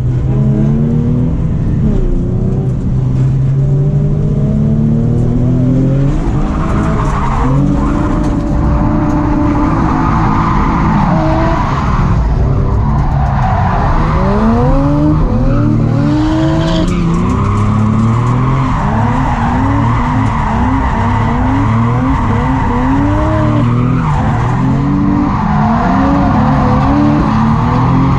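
Nissan 350Z's VQ V6 engine revving hard, its pitch climbing and dropping again and again through a drift run, with tyres squealing on and off over it.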